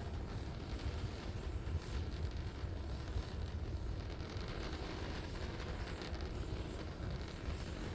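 Steady deep rumble of Starship SN11's three Raptor rocket engines during powered ascent, with a wind-like rushing hiss over it.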